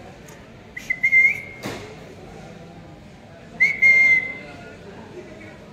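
Two short, high, steady whistle-like squeaks, about three seconds apart, each lasting around half a second, with a sharp click between them.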